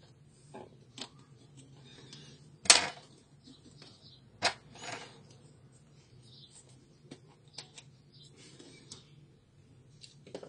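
Plastic clicks and snaps from an HP 17A toner cartridge as its end cap is pried off with a thin metal tool: one sharp, loud snap about two and a half seconds in and a second one about four and a half seconds in, among light ticks and the rustle of the plastic being handled. A low steady hum runs underneath.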